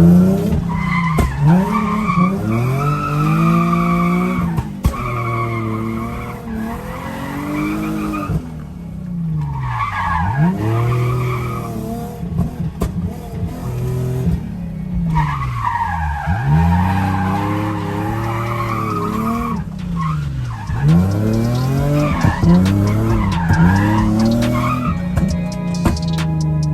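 Nissan 350Z drift car's 3.5-litre V6 revving up and falling back again and again as it is driven hard, with tyres skidding through the slides. Music plays underneath part of the time.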